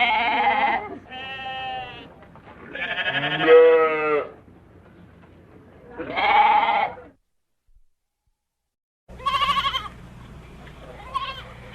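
Goats bleating: four wavering bleats of about a second each, then two seconds of complete silence. After the silence, another loud bleat and fainter calls come over a low steady hum.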